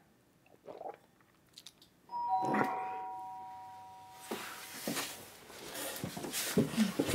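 Doorbell chiming two notes, a higher note with a lower one close behind, ringing out for about two seconds and then cut off; shuffling and knocking movement noises follow.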